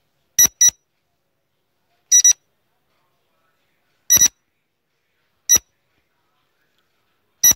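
Quiz countdown-timer sound effect: short, high electronic beeps marking the seconds, about every one and a half to two seconds, the first two coming as quick double beeps.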